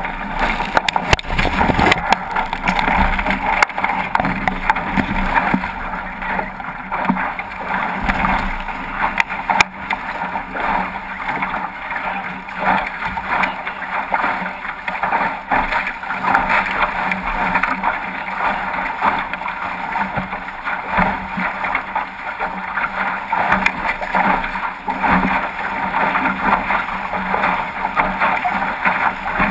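Water rushing and splashing along the hull of a 505 racing dinghy sailing fast, with irregular slaps and knocks of water against the boat.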